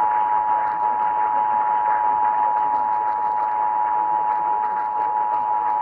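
Emergency Alert System attention signal: the steady two-tone alert (853 and 960 Hz) held unbroken, heard over a radio through a steady hiss.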